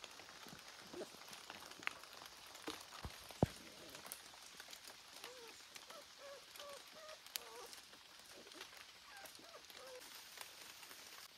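Faint short whines from a dog, a dozen or so brief high notes over the second half, over a steady soft hiss with a sharp click about three and a half seconds in.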